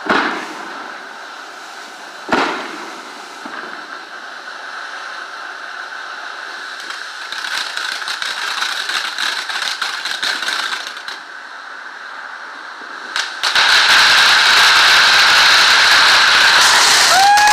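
Consumer fireworks finale cake going off: two sharp bangs in the first few seconds, then a stretch of rapid crackling. From about two-thirds of the way through comes a loud, continuous crackling hiss, with a short rising-and-falling whistle near the end.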